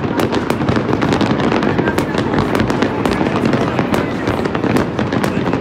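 Many fireworks exploding at once: a dense, unbroken run of bangs and crackles with no gaps.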